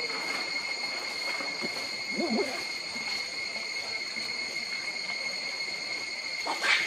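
Steady high-pitched drone of insects, with a brief low warbling call about two seconds in and a louder burst of high chirring near the end.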